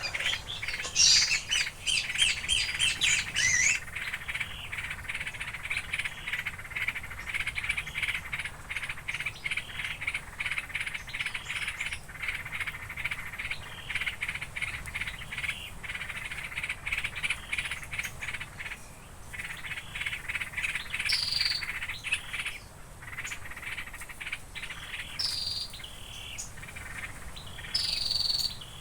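Small birds calling: a fast run of loud, rapid chirps in the first few seconds, then steady rapid chirping, with several short falling whistles near the end.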